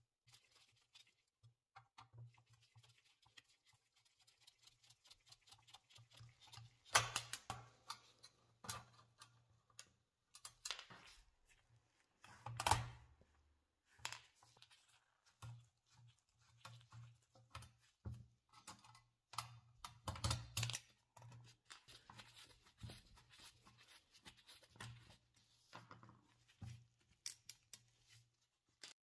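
Small metal clicks, taps and scrapes as screws are worked out of an antique brass toaster and its parts handled, with two sharper knocks about 7 and 13 seconds in.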